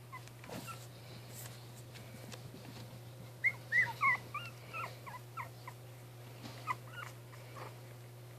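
Chinese Crested puppies, almost three weeks old, squeaking and whimpering as they wrestle: a flurry of short high-pitched squeals about three and a half seconds in, then a few more near seven seconds.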